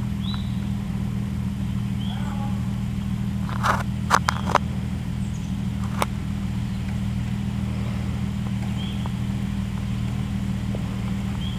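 Jeep TJ engine idling steadily while the Jeep sits stopped on the hill. A quick run of sharp clicks comes about four seconds in, with one more at six seconds.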